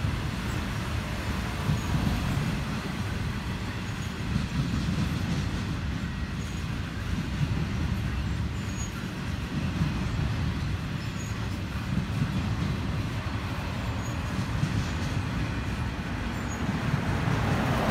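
Intermodal freight train cars, flatcars loaded with truck trailers and containers, rolling past: a steady rumble of steel wheels on the rails.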